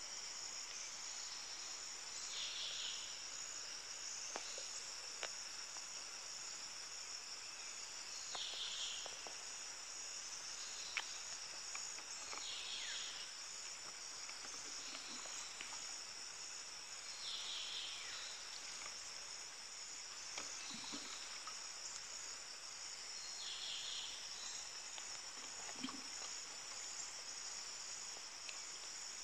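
Steady shrill chorus of insects, with a louder chirp repeating every four to six seconds and a few faint knocks.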